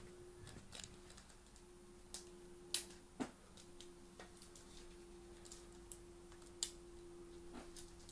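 Scattered light clicks and taps, the sharpest a little under three seconds in and again near the end, over a steady low electrical hum.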